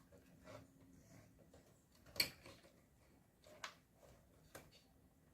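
Faint clicks and light knocks of cables and connectors being handled and fitted inside a desktop PC case, the sharpest about two seconds in and two smaller ones near the end, over near-silent room tone.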